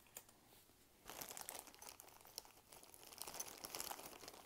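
Hands rummaging through a pile of costume jewelry: small metal and plastic pieces clicking, clattering and rustling against each other. It starts about a second in as a dense run of small clicks and crackles.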